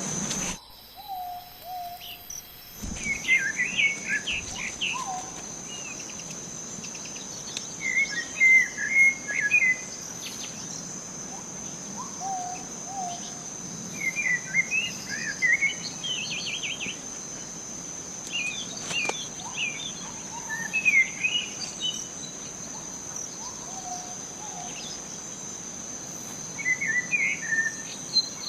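A forest bird singing short warbled phrases, repeated about every five to six seconds, over a steady high-pitched insect drone.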